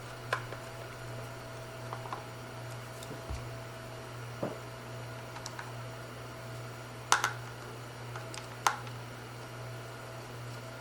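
Scattered light clicks and taps of a plastic heater control panel and small tools being handled, the sharpest two about seven and nine seconds in, over a steady low hum.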